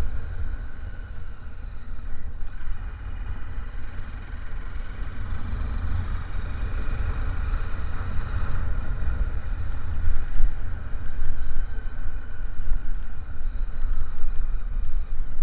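A vehicle in motion: steady road and engine noise with a heavy low rumble, growing somewhat louder in the second half.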